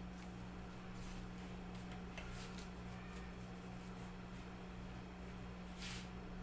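Faint handling sounds of thin plastic food-prep gloves and thread being worked through raw chicken skin: soft scattered rustles and small ticks, with one brief louder rustle near the end, over a steady low hum.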